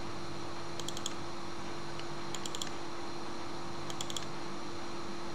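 Computer mouse double-clicking about three times, a second or so apart, each a quick cluster of light, sharp clicks, over a steady low hum.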